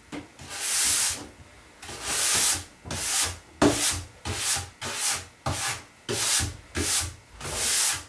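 Horsehair brush swept in repeated strokes along a snowboard's waxed base, brushing out the loosened old wax dust. The strokes come about once a second at first, then quicken to about two a second.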